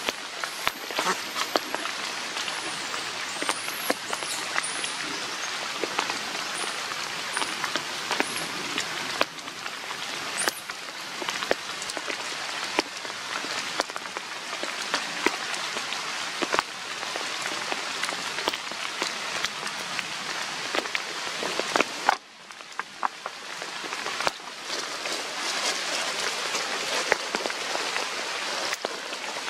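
Steady rain pattering on dead leaf litter, with many scattered drop taps. A few thin high chirps come in the first ten seconds. The rain noise drops off suddenly about three-quarters of the way through, then builds back up.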